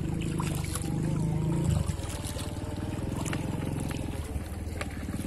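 Motorboat engine running with a low, steady rumble, louder for the first two seconds and then easing off.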